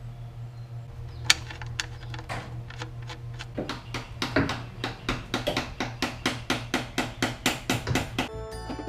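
A low steady hum with a few scattered sharp clicks. From about three and a half seconds in comes a run of sharp, evenly spaced taps, about four or five a second.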